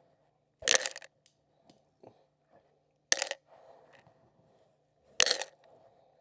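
Handfuls of dried corn kernels thrown out as chicken feed, scattering and rattling down in three short bursts about two seconds apart.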